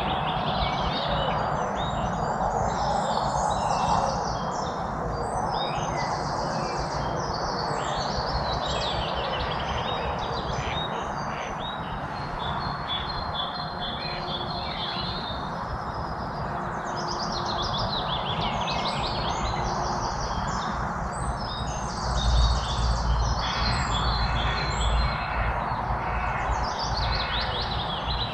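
Dense chorus of many songbirds chirping and trilling over one another, over a steady background hiss. A low rumble comes in about three-quarters of the way through.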